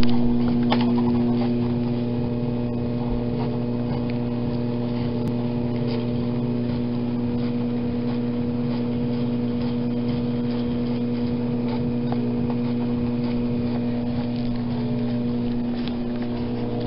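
Treadmill running: a steady motor hum with faint scattered clicks.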